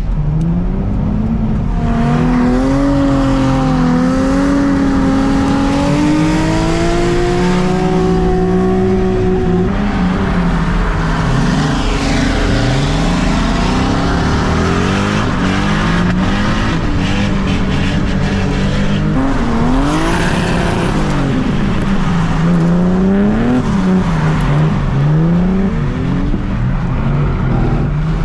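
Nissan 350Z drift car at full throttle through a drift run: the engine holds high revs and climbs for the first ten seconds, then swings sharply up and down several times, over a steady rush of tyre and road noise.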